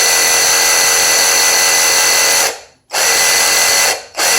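Mereced 20V cordless reciprocating saw with a brushed motor, run with no load, its blade stroking in the air: a steady motor whine that cuts out about two and a half seconds in, starts again, and stops and restarts once more briefly near the end. It sounds pretty powerful.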